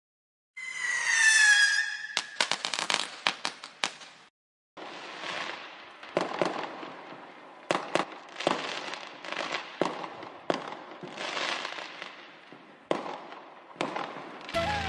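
Fireworks: a whistling firework with a falling whistle, then a quick string of firecracker cracks. After a short break comes a steady crackle of fireworks, with sharp bangs every second or two.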